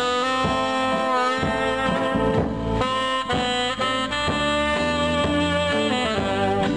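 Tenor saxophone playing a melody of quick, changing notes.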